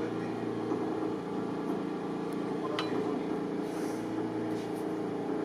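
A steady mechanical hum with several even low tones, and a single sharp click a little before three seconds in.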